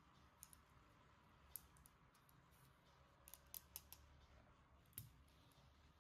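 Faint, sharp clicks and snips, about six of them scattered over several seconds, the strongest about five seconds in: small plastic parts or packaging being handled while a toy set is unboxed.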